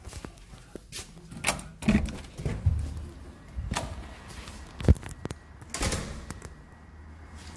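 Footsteps in sandals on a hard tile floor, heard as a few irregular knocks and thumps; the loudest thump comes about five seconds in.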